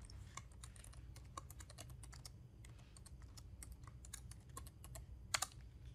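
Faint typing on a computer keyboard: a quick, uneven run of key clicks, with one louder keystroke near the end.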